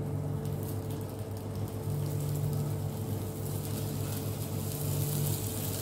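Faint sizzling of tomato rings as they go into a hot oiled frying pan, growing a little brighter in the second half, over a steady low hum.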